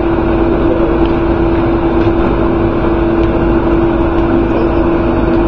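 Boat engine running steadily under way: a constant droning hum over a heavy, even rush of engine and water noise.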